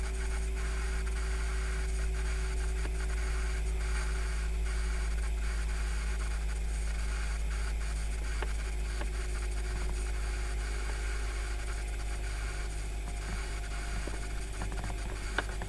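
Steady electric hum from a 2002 Toyota 4Runner's front-axle 4WD disconnect (ADD) actuator running with the ignition on and the engine off, trying to shift the axle fork. The owner doesn't like the sound of it.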